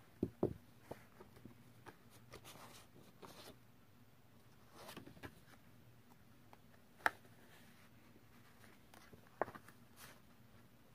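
Card stock being handled and worked with small scissors: scattered rustling and scraping of card, with a few sharp clicks, the loudest about seven seconds in.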